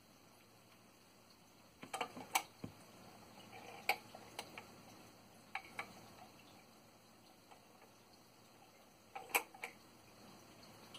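Garrard 42M record changer running its automatic return cycle after the record ends: scattered faint mechanical clicks and clunks in small clusters as the tonearm lifts and swings back to its rest, over a low steady hiss.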